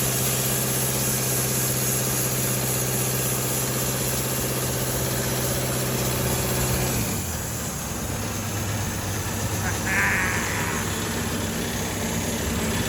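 Sawmill engine running steadily, then throttled down to a lower, slower running about halfway through. A brief higher-pitched squawk-like sound comes near the end.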